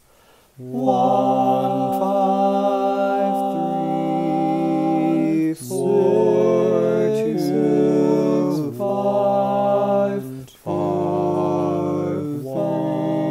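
Three-part a cappella male vocal harmony, one man multitracked, singing a slow sequence of held chords in a minor key. The chords change together every one to three seconds, with short breaks between some of them.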